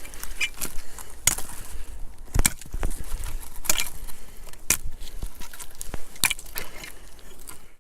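Firewood being stacked: irregular knocks and crunches as pieces of split wood are set down, with about five sharper knocks spread across the few seconds.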